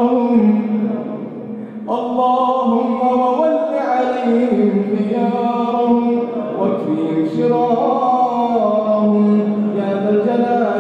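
A man's voice chanting an Arabic supplication (dua) in long, melodic drawn-out phrases, with held notes that glide up and down and short breaks between phrases.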